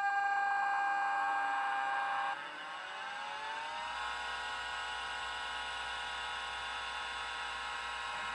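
An old MFM hard drive powered on: a steady tone for about two seconds, then the spindle motor's whine rising in pitch as the platters spin up. It settles into a steady whine about four seconds in, a spin-up that sounds more normal than the previous try.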